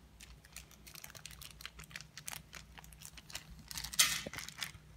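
Small plastic bag around a remote control crinkling and crackling in small clicks as it is handled and pulled open, with a louder tearing rustle about four seconds in.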